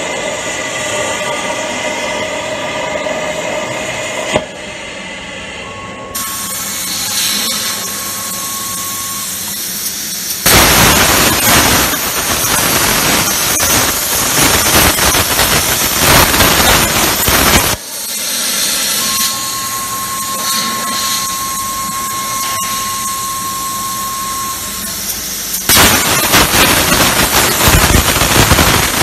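CNC plasma cutter's torch cutting metal: a loud, steady hiss with crackle. It switches abruptly several times between quieter and much louder stretches. A thin steady whistle sounds in two of the quieter stretches.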